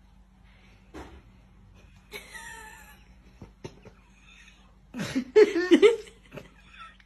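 Faint steady hum with a few soft knocks, then a short, loud outburst of a person's voice about five seconds in, breaking and bending in pitch.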